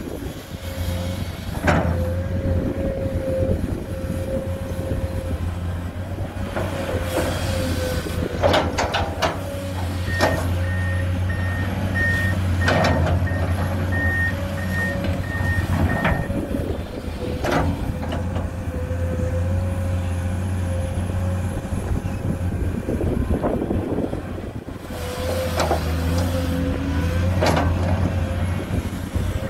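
Komatsu PC210 hydraulic excavator's diesel engine running steadily with a hydraulic whine, its note swelling and easing as it digs and swings. Scattered clanks come from the bucket and earth. About a third of the way in, a vehicle's reversing alarm sounds a quick series of about ten beeps.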